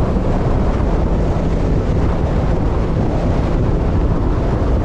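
Storm-force mountaintop wind buffeting the microphone: a loud, steady rush of wind noise, heaviest in the low end.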